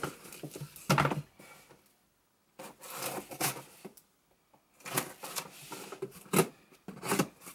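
Cardboard shipping box being handled and opened on a wooden desk: irregular knocks, scrapes and rubbing of cardboard, with a couple of short quiet pauses.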